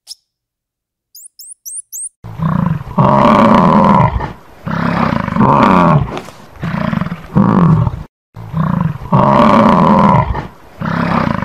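Bison bellowing: a series of loud, deep roars, each a second or two long with short pauses between, starting about two seconds in. A few short high bird chirps sound just before the first roar.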